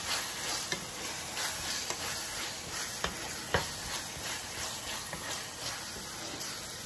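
Minced beef and diced tomato sizzling in a frying pan while a wooden spatula stirs and scrapes through it, with small scraping clicks and one louder knock about three and a half seconds in.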